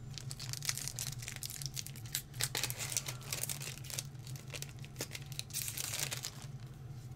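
Foil wrapper of a Pokémon TCG booster pack crinkling as it is handled and torn open by hand, a run of small crackles.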